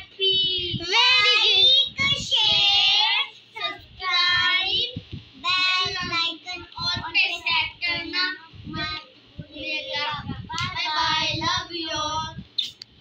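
Children singing in high voices, in short phrases with brief gaps between them.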